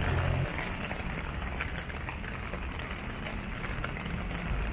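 Rain falling with the low rumble of road traffic, the rumble heavier in the first half second.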